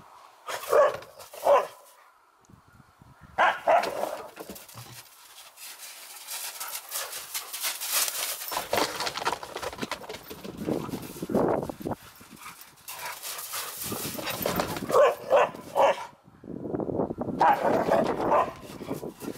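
Dogs barking and yipping while playing, in short clusters of two or three calls, with a rustling noise in between.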